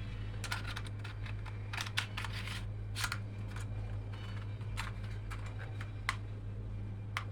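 Scattered light plastic clicks and handling noises as the E88 Pro drone's removable battery and casing are handled and the drone is switched on, over a steady low hum.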